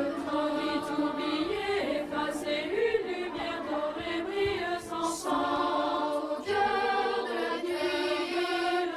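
Chant-like choral vocal music: voices singing long held notes that change pitch every second or so.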